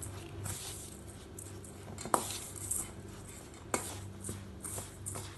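Stainless steel kitchenware, a tea strainer and spoon, clinking against a steel mixing bowl, with two sharper clinks about two and three and a half seconds in. Underneath is the soft scrape of coarse rice and spice powder being worked by hand as jaggery syrup is mixed in.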